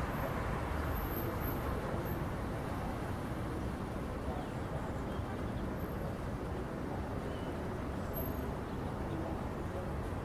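Twin-engine jet airliner heard from the ground as it flies away: a steady, low jet rumble that slowly fades a little.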